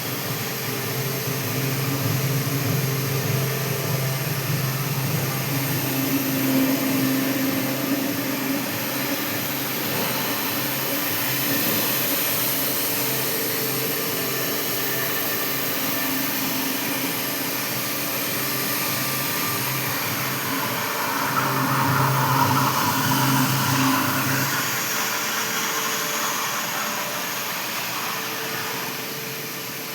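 Industrial machinery in a forging shop running steadily: a constant motor hum under a rushing, blower-like hiss, swelling slightly about three quarters of the way through.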